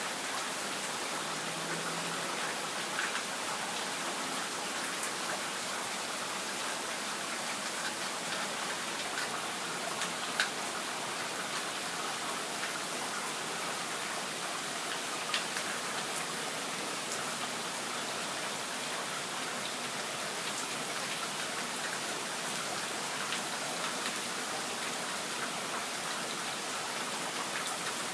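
Steady rain from a thunderstorm, an even hiss of falling water with a few sharper drop hits standing out now and then.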